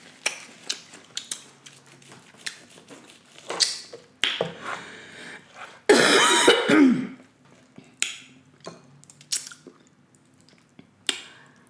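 Close-up mukbang eating sounds: chewing with scattered small clicks and taps, and a loud throat-clearing about six seconds in.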